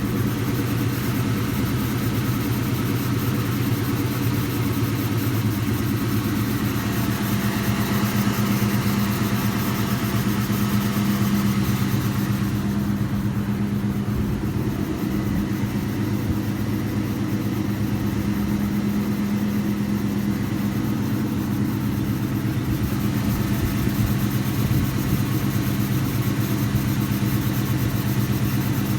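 A 2000 Ford Mustang GT's 4.6-litre V8 idling steadily, with a hiss over it that the owner can't place as coming from the exhaust or from something else. The hiss drops away for about ten seconds near the middle, then comes back.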